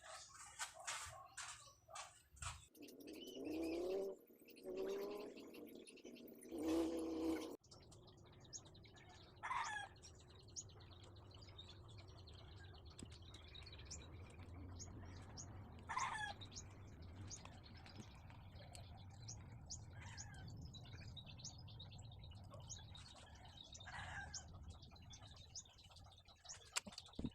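Birds calling: several pitched calls in the first seven seconds, then a few short chirps that fall in pitch, over a low steady hum, with a few clicks near the start.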